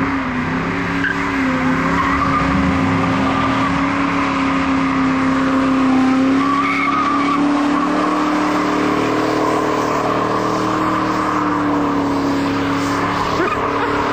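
A car doing a burnout: the engine is held at high revs at a nearly steady pitch while the spinning rear tyres squeal against the pavement.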